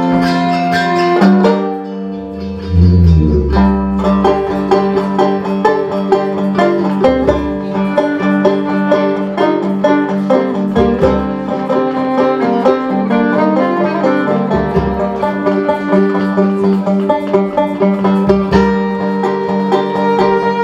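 Live folk band playing a fast instrumental tune led by plucked strings. The playing thins out briefly about two seconds in, then a low note brings it back to full strength.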